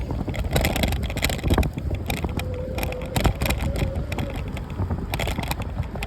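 Riding noise from a bike on the move: rumbling wind on the microphone with frequent rattles and knocks, and a faint steady whine for a couple of seconds in the middle.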